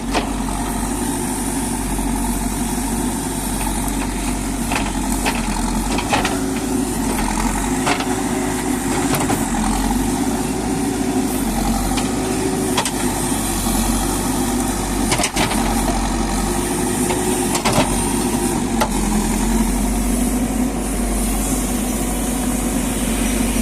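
Diesel engine of a JCB backhoe loader running steadily while digging, its pitch rising and falling a little under load, with scattered sharp knocks and clanks.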